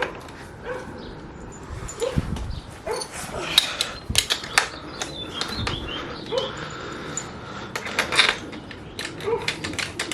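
A dog barking in a series of short barks, mixed with scattered sharp clicks and knocks.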